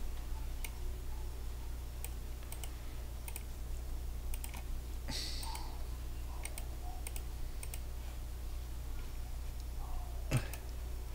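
Computer keyboard typing and mouse clicks: scattered single clicks, a few at a time, over a steady low hum.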